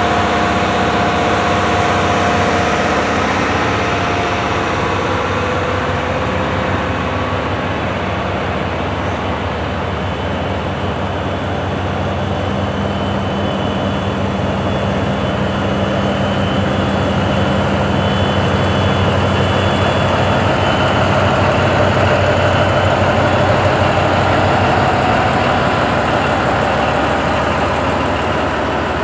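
DF200-7000 diesel-electric locomotive idling at a standstill: a steady low engine hum. A few higher steady tones over it fade out within the first several seconds, and the hum grows a little louder past the middle.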